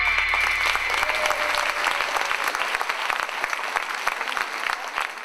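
Audience applauding: dense, steady clapping. The last held note of the music fades out over the first second.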